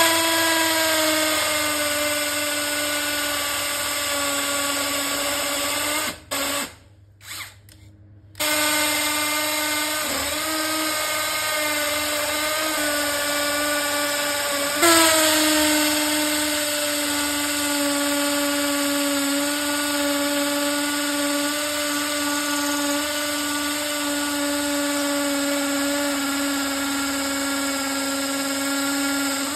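Brushless cordless drill with a masonry bit boring into a brick: a steady motor whine that stops about six seconds in, gives a couple of short blips, and starts again about two seconds later. About halfway through the pitch jumps up, then sinks slowly until the drill cuts off near the end.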